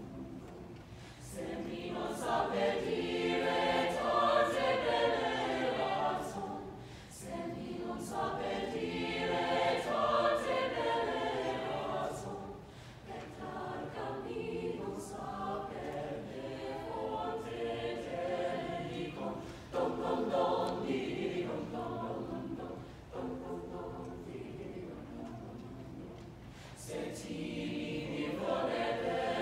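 Mixed choir of female and male voices singing together in long phrases, with brief dips between them.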